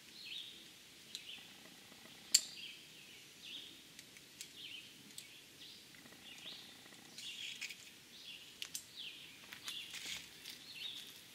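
A songbird calling over and over with short downward-slurred chirps. A single sharp click about two seconds in is the loudest sound, and light clicks and rustles follow near the end as the climbing rope and belt are handled.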